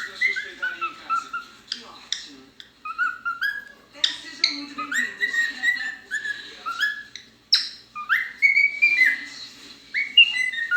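Pet bird singing: a rapid, continuous string of short whistled notes, many sliding upward, with brief pauses between phrases.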